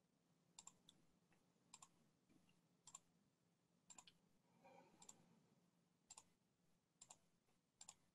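Near silence with faint, evenly spaced double clicks, about one a second.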